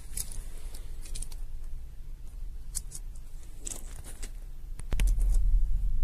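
Small plastic clicks and taps of a car alarm key tag being handled as its battery is fitted back in. A low rumble sets in about five seconds in.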